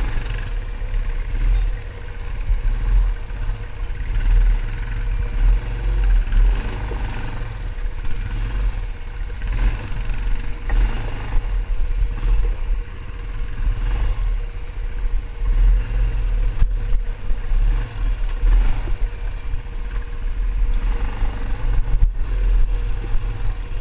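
Yamaha ATV's engine running steadily while it is ridden over a rough, rocky dirt trail. A strong low rumble is broken by scattered short knocks from bumps.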